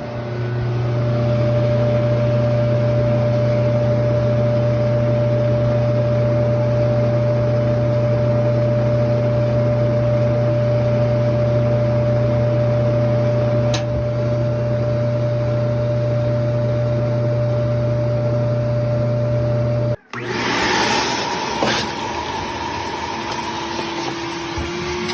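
Gas clothes dryer being test-run with a new igniter fitted: the drum motor and blower give a loud, steady hum with a constant whine over it. About 20 seconds in the sound breaks off abruptly and a different, brighter steady running sound follows.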